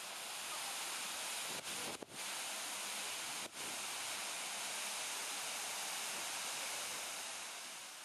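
Fountain water splashing: a steady rushing hiss, broken by a few short dropouts about two and three and a half seconds in, and starting to fade near the end.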